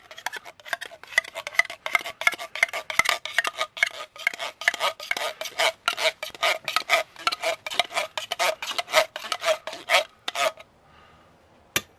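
Metal scraping and clinking against metal in a quick, steady rhythm of about three to four strokes a second, stopping shortly before the end.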